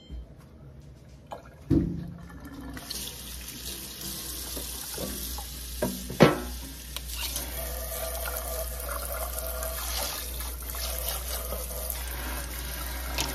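Kitchen faucet running into the sink as a metal baking sheet is rinsed under it, the water starting about three seconds in. Two sharp clanks of the sheet pan against the sink, the louder one about six seconds in.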